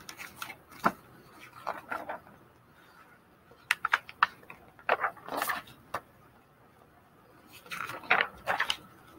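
Pages of a picture book being turned and handled: several short paper rustles and flaps, with a quick cluster of sharp clicks about four seconds in.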